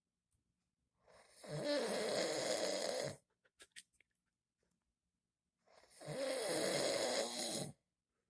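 A man snoring in his sleep: two long snores, each about two seconds, roughly four seconds apart.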